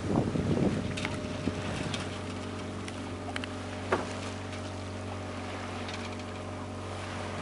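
Columbia 38 sailboat under way: a steady low hum, with wind buffeting the microphone in the first second and a few light knocks from the deck and rigging.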